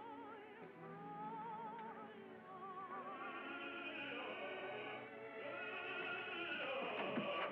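Operatic singing with a wide, regular vibrato, held notes over an orchestra, with a brief swooping glide in pitch about seven seconds in.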